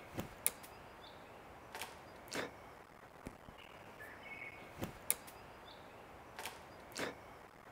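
Quiet forest ambience with faint bird chirps, broken by a series of sharp clicks and knocks, roughly one every second or so.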